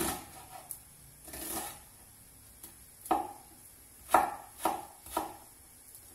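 Knife slicing an onion on a wooden cutting board: separate sharp knocks of the blade against the board, sparse at first, then three in quick succession about half a second apart.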